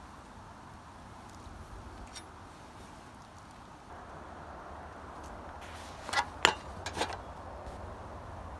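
A few sharp metallic clinks, most of them bunched about six to seven seconds in, like hand tools and steel bicycle parts knocking together during a teardown. They sit over a low, steady hum.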